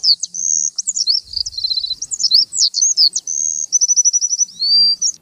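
Songbird singing: a quick run of varied high whistled chirps, up- and down-slurred notes and short rapid trills, with barely a pause between phrases.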